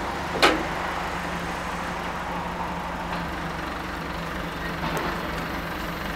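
Truck engine idling steadily, the low hum of the aerial work platform's carrier truck, with one sharp click about half a second in.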